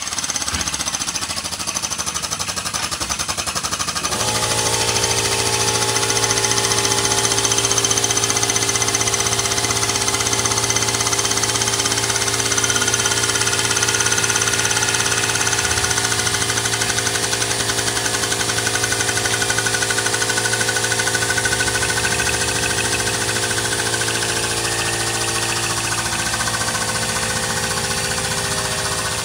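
The pump for a set of race-car lift jacks runs continuously and rattles as it drives the jacks that raise the car. Its pitch settles about four seconds in and shifts again near the end as the load changes.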